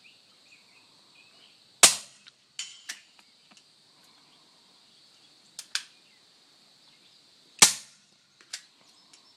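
Two suppressed shots from a Nagant revolver rebarreled to .308 and fired through a .308 suppressor, about six seconds apart. Each is a short, sharp pop. The load is a light one: 30 carbine bullets over a few grains of Trail Boss. Several fainter clicks fall between the shots.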